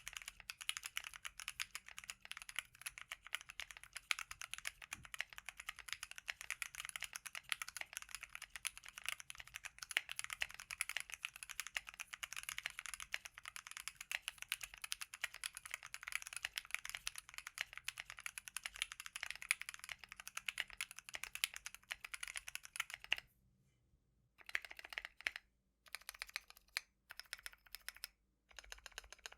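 Custom Tofu65 mechanical keyboard with a brass plate, lubed and filmed Lilac 65g tactile switches and PBT keycaps, typed on quickly and continuously. The typing stops about 23 seconds in, then resumes in short bursts with pauses between them.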